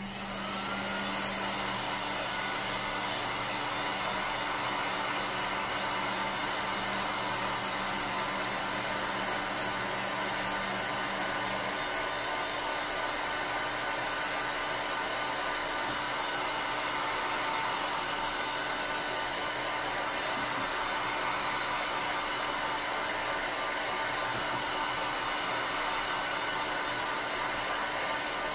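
Electric heat gun blowing hot air steadily to dry wet watercolour paint. A low hum under the rush of air drops away about twelve seconds in.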